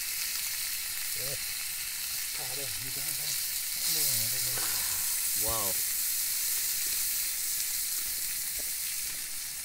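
Whole fish frying on a flat iron tawa, a steady hissing sizzle. A voice says "wow" about halfway through.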